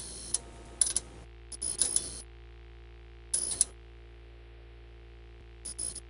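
A shopping bag rustling and crinkling in five short bursts as it is handled and opened, over a faint steady low hum.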